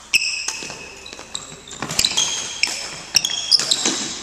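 Badminton rally on a wooden gym floor: several sharp racket hits on the shuttlecock, spaced about a second apart, mixed with high squeaks of court shoes.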